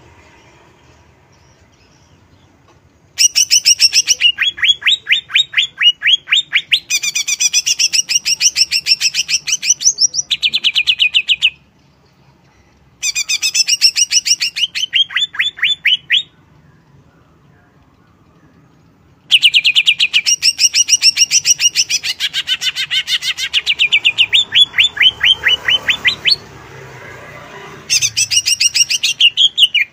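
Cucak ijo (green leafbird) singing in four loud bursts of fast, rapid-fire phrases: rising whistled notes, several to the second, each burst a few seconds long with short quiet gaps between.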